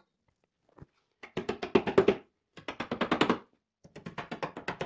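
Rapid hammer tapping driving small metal trim clips down onto a car's body panel, in three quick bursts of about ten taps a second.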